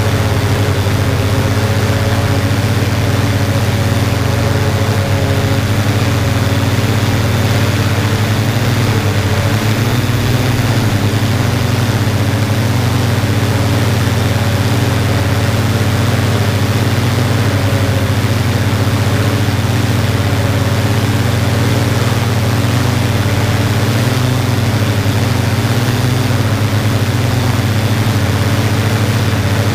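Yuneec Typhoon G drone's electric motors and propellers, a steady loud hum heard close up from the drone's own camera, its pitch shifting only slightly as it flies.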